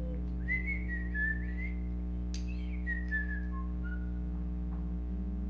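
A person whistling a short run of notes that step up and down. A steady low hum runs underneath.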